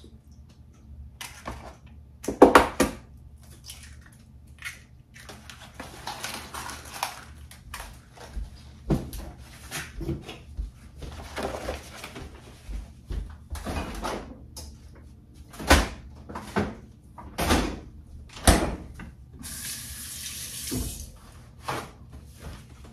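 Eggs cracked against a stainless steel mixing bowl and other kitchen handling: a string of sharp knocks and clicks. Near the end a tap runs for a second or two.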